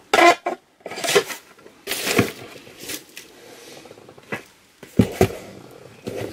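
Items and packaging being handled on a desk: a series of short rustles and knocks, with two sharper thumps about five seconds in.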